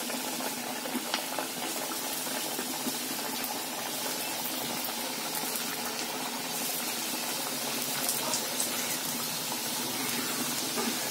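Aloo kachoris deep-frying in hot refined oil in a steel kadai: a steady sizzle and bubbling with a few faint crackles.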